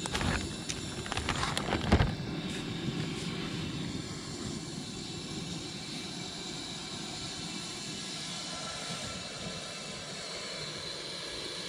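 A water-filled plastic bag crinkles and rustles as it is handled, ending in a sharp crackle about two seconds in. After that comes a steady rushing noise.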